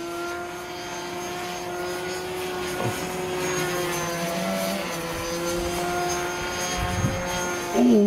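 RC model aircraft's motor and propeller buzzing steadily in flight, its pitch wavering slightly, then falling sharply near the end.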